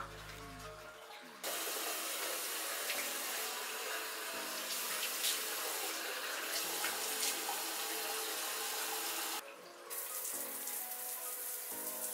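Bathroom sink faucet running, a steady splashing hiss of water into the basin that starts about a second and a half in and breaks off briefly near the end before running again.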